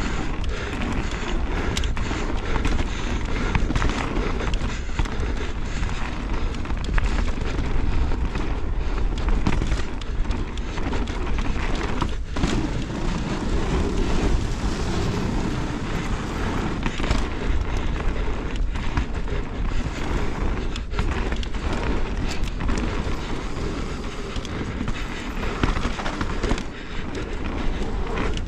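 Mountain bike tyres rolling fast over a dirt and gravel trail, a steady rumble with frequent sharp clicks and knocks from stones and bumps under the wheels and rattling from the bike.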